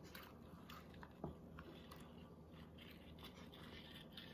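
Near silence: faint room tone with scattered small clicks and one soft knock just over a second in.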